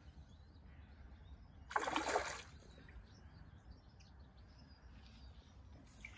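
A single brief splash of water about two seconds in, as a fish released by hand goes back into the lake; otherwise faint outdoor background.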